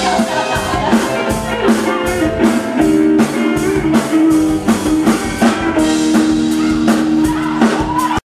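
Live band playing a pop-rock song, electric guitar over a drum kit keeping a steady beat; the music cuts off suddenly near the end.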